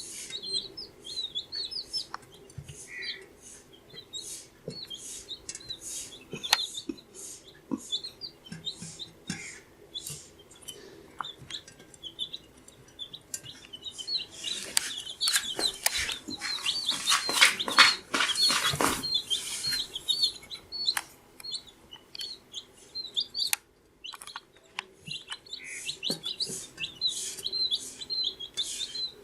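A flock of two-week-old baby chicks peeping, many short high chirps overlapping continuously. Around the middle the chirping grows louder and busier, mixed with scratchy clicks and rustling.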